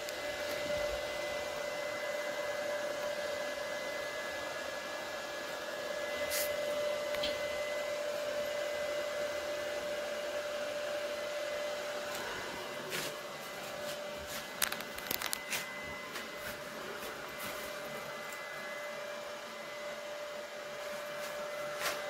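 Portable 900 W electric clothes dryer's fan-heater unit running, a steady blowing hum with a thin whine through it. A few light clicks and knocks come partway through.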